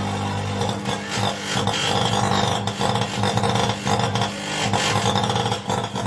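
Orient microwave oven running on direct mains power: a loud, steady electrical hum from its high-voltage transformer, with a rough crackling buzz over it from sparking inside the oven, the fault being shown.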